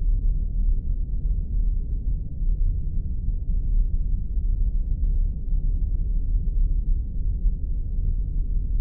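Spaceship ambience sound effect: a steady, deep rumble that does not change, with faint scattered crackles above it.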